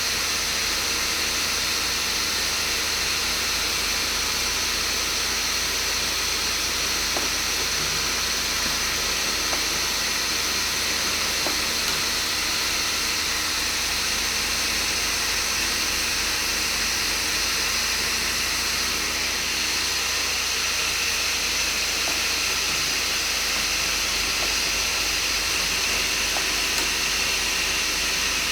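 DW 25 nail-collating welding machine running steadily: a constant hiss with a low hum and a few steady tones, and occasional faint ticks.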